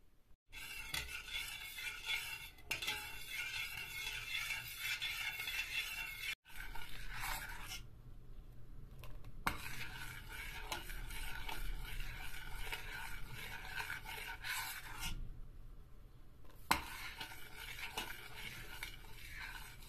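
A utensil stirring milk, sugar and semolina in a stainless steel saucepan, scraping steadily around the metal pot as the pudding heats towards the boil, with a couple of short pauses.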